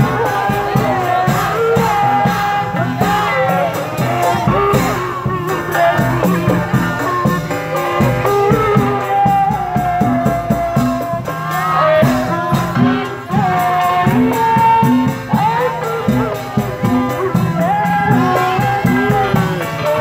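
Live Indonesian procession music: drums beating a steady rhythm under a wavering, sliding melody line, with jingling percussion and crowd noise mixed in.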